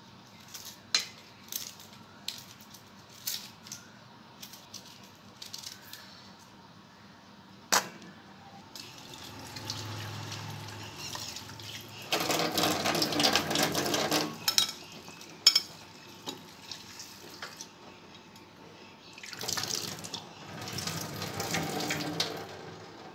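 A kitchen tap running into a stainless steel sink, the water splashing loudly while a steel bowl is rinsed under it, then a second, shorter spell of running water. Before the water, a string of small clicks and taps from handling things over a steel plate, and a sharp knock just after the first spell of water.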